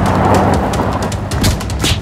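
Dubbed-in vehicle engine sound effect, a low steady rumble with a tone that rises then holds, mixed with knocks and background music.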